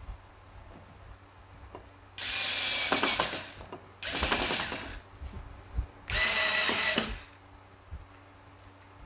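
Electric screwdriver running in three short bursts, each about a second long, driving the screws that hold a TV stand foot in place.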